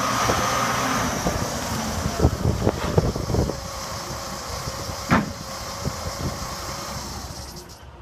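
Dresser 520B wheel loader's diesel engine running as the machine moves and comes to a stop. There is a run of sharp knocks from about two to three and a half seconds in, then one louder knock about five seconds in, and the engine sound eases off toward the end.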